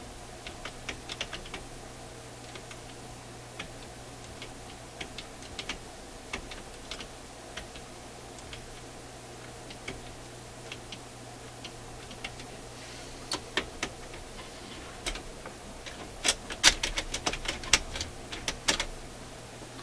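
Small metallic clicks and ticks from the changer mechanism of a Marconi fold-out record player as its levers and springs are worked by hand. They come scattered at first, then thicker and louder over the last several seconds, over a steady low hum.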